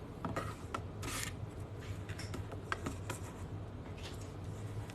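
Trading cards and their plastic sleeves and pack wrappers being handled: light rustles and small clicks, with a short scratchy rustle about a second in, over a steady low hum.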